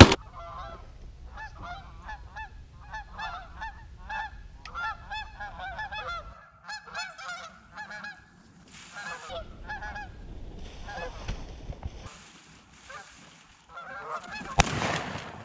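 Flock of Canada geese honking repeatedly as they fly in over the decoys. A single sharp shotgun blast near the end.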